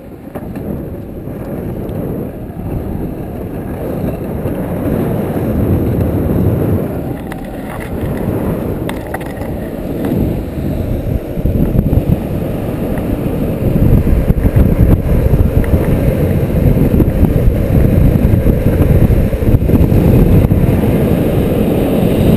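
Longboard wheels rolling on asphalt with wind rushing over the microphone, growing steadily louder as the board gathers speed downhill in a tuck. A few brief clicks break through along the way.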